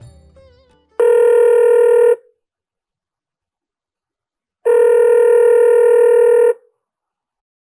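Telephone ringing: two long rings of a steady electronic tone. The first comes about a second in; the second, a little longer, starts just past the middle.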